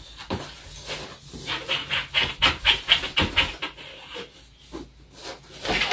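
A cardboard figure box being handled and pulled open, rustling and scraping, while a dog sniffs at it close by. From about a second and a half in there is a quick run of short sniffs, about five a second.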